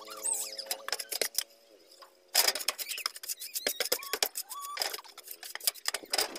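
Crackling and scraping handling noise as a plastic soda bottle is held in a drain opening and wet mortar is pressed around it by hand, with two louder rustling bursts, about two and a half and five seconds in.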